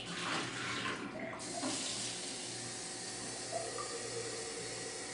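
Water splashing into a stainless steel sink, then a kitchen faucet turned on about a second and a half in, running steadily.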